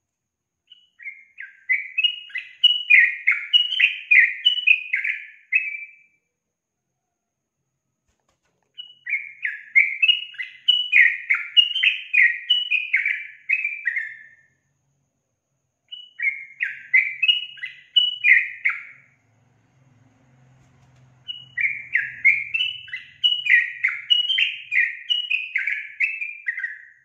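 Yellow-vented bulbul (trucukan) singing: four bursts of quick, bubbly chattering notes, each lasting a few seconds, separated by short pauses.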